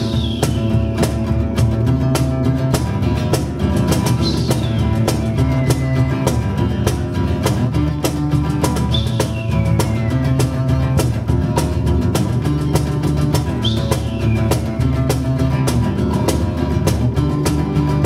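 Acoustic guitar strumming over hand drums in a steady groove. About every four to five seconds a high whistle-like sweep falls in pitch, played on a handheld tube instrument at the microphone.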